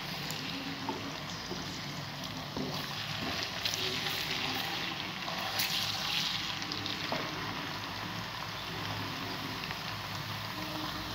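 Ginger-garlic paste frying in ghee in an aluminium pan, a steady light sizzle, with a few scrapes of a slotted spatula stirring it against the pan.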